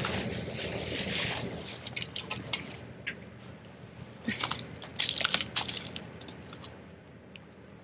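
Crunching and scraping of loose shell and soil as a bucketed seedling is worked into a dug hole, in irregular crackly clusters, loudest about five seconds in, then quieter.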